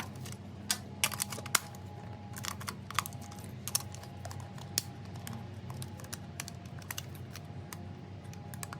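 Irregular light plastic clicks and taps as a toy remote-control stunt car and its parts are handled.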